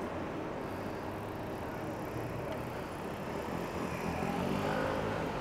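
Street traffic heard from a moving bicycle: a steady rumble of road and wind noise, with a vehicle engine hum that swells about four seconds in.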